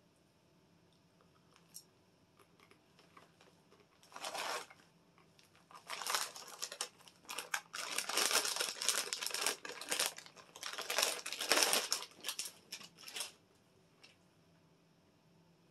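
Crinkly plastic snack-chip bag being handled, in irregular bursts of crackling: one short burst about four seconds in, then a longer stretch of crackling that stops shortly before the end.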